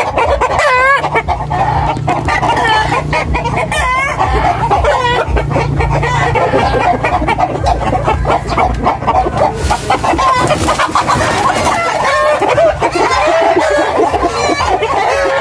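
A flock of backyard chickens clucking, with a rooster crowing now and then. About ten seconds in there is a short noisy flurry as a chicken is caught by hand.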